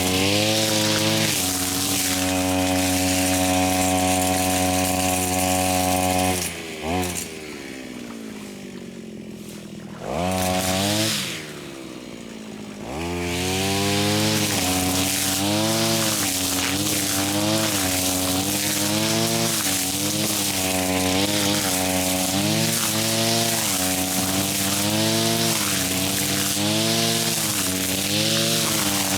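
Small petrol engine of a grass cutter running at high revs, then dropping to idle about six seconds in. It gives a short rev near ten seconds, revs back up around thirteen seconds, and from then on rises and dips in pitch every second or so as it works through thick grass.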